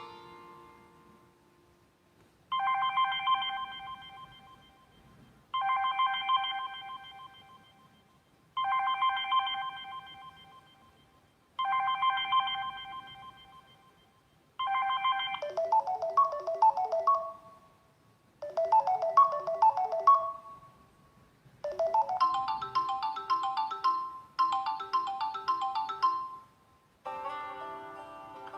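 Samsung Galaxy Note 4 ringtones playing. A bell-like chime repeats about every three seconds, and from about halfway a quicker plinking melody takes over. A different tone starts near the end.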